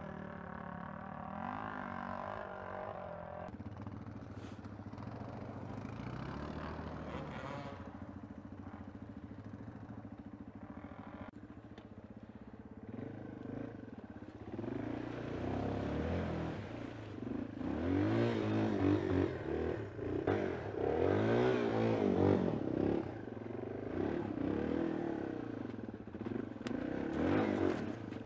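Yamaha XT225 dual-sport motorcycle's single-cylinder four-stroke engine running under load on a trail, the revs rising and falling again and again. It runs fairly steady at first, and the revving grows louder and more frequent from about halfway.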